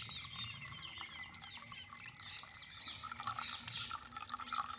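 Birds chirping throughout, many short high calls overlapping, with milk trickling as it is poured from a steel vessel into a plastic feeding bottle.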